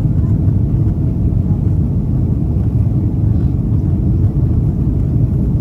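Boeing 767 cabin noise in flight shortly after takeoff: a steady, loud, low rumble of jet engines and airflow, heard from a window seat over the wing.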